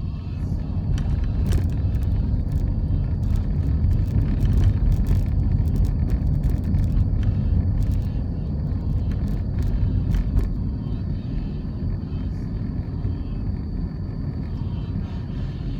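Steady low rumble of a car driving along a road, with scattered light clicks and ticks between about one and ten seconds in.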